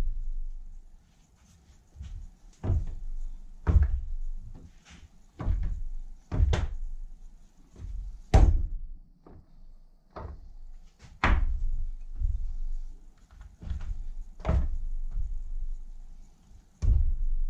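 Dull thuds and knocks of pizza dough being cut and set down on a wooden cutting board, a dozen or so at irregular intervals, some with a sharper knock as the tool meets the wood.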